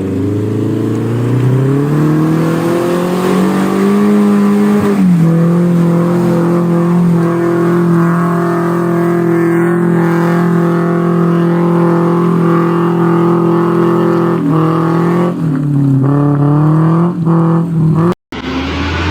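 Car engine revving hard under load as the car climbs a muddy slope. The revs rise over the first few seconds and hold steady for a long stretch. Near the end they drop and surge a few times, then the sound cuts off abruptly and comes back at lower revs.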